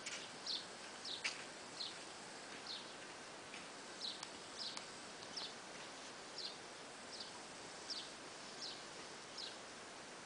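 A small bird calling over and over: short, high notes that each slide down in pitch, about one a second, the sharpest and loudest just over a second in.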